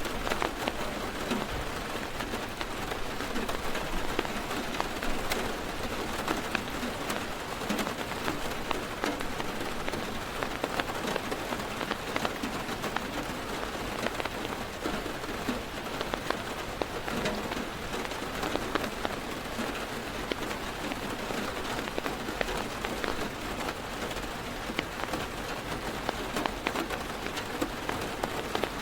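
Heavy rain pattering on a car's roof and windows, heard from inside the car: a steady dense hiss thick with individual drop taps.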